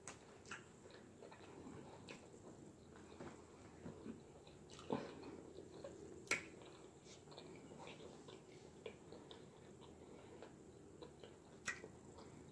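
Quiet chewing of salad, with scattered sharp clicks of a fork against the clear plastic salad bowl, the loudest about six seconds in.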